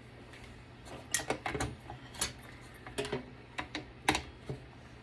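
Irregular clicks and knocks of desktop computer parts being handled and taken apart, hard metal and plastic pieces tapping against each other, about ten sharp sounds spread unevenly.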